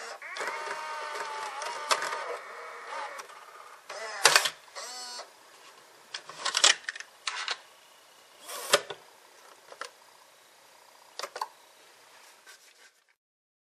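Sony EV-C8u Video 8 cassette deck's tape mechanism whirring with a wavering whine for the first three seconds, then a clunk as it ejects about four seconds in. This is followed by clicks and snaps of the cassette lid being opened, the tape handled and the lid shut, with a last few clicks near the end.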